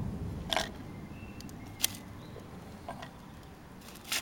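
Hard cast resin orgonite pieces being handled on newspaper: a few separate sharp clicks and knocks as they are picked up and set against each other, over a low steady rumble.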